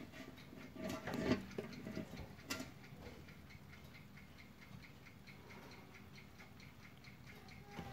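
Brass-cased ship's clock by N.V. Observator of Rotterdam ticking quickly and evenly, several ticks a second. A few louder knocks and rustles sound in the first couple of seconds.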